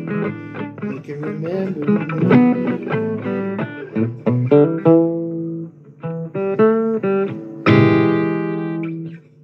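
Blues guitar playing a run of single plucked notes, then a chord struck near the end that rings out and fades.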